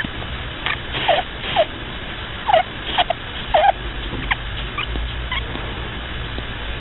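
Pet rabbit snoring in its sleep: about nine short, squeaky whistles, some dropping in pitch, coming irregularly every half second or so.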